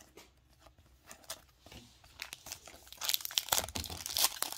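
A foil trading-card pack wrapper being torn open and crinkled by hand, a dense crackle that starts about three seconds in after a few faint handling ticks.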